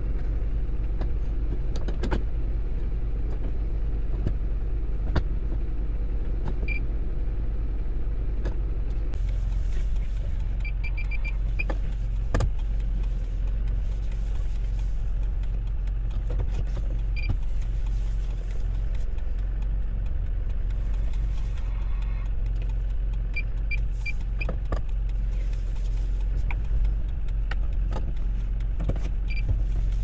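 Kia Bongo III truck's engine running steadily, heard from inside the cab, with scattered clicks. Short high beeps come now and then, twice in quick runs of three or four, typical of the reversing sensor being checked.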